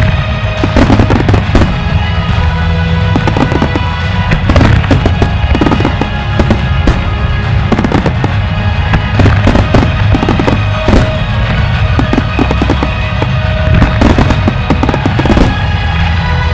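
Fireworks display: many shells bursting and crackling in quick succession over a deep rumble, with music playing along.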